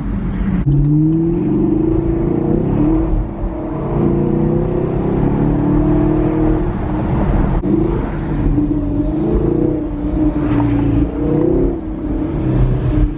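Chevrolet Camaro ZL1's supercharged V8 accelerating hard, its note climbing in pitch and dropping back several times as it revs up through the gears.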